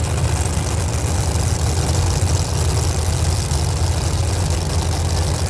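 Drag-racing car engine idling, a steady low, choppy rumble.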